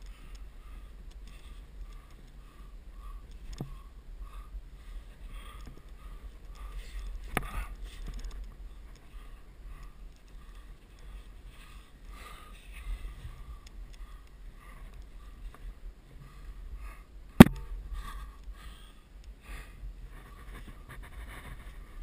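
Wind rumbling on a helmet-mounted camera's microphone as a climber works up a sandstone crack, with a few sharp knocks, the loudest about seventeen seconds in.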